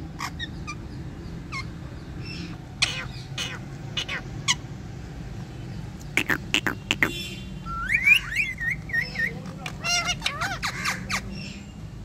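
Rose-ringed (Indian ringneck) parakeets calling: short, sharp squawks and chirps spaced out at first, a quick cluster of harsh calls about six seconds in, then a run of warbling whistled notes and rapid chattering calls in the second half.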